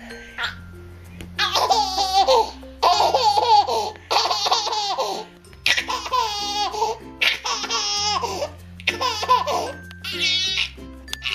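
High-pitched laughter in about seven repeated bursts over background music with a steady bass line.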